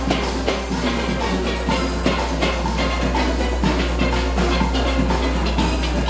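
A full steel band playing a soca arrangement on steel pans, many pans struck together in a steady rhythm, with drums keeping the beat.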